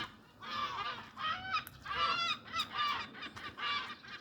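Seagulls calling, a steady run of calls at about two or three a second.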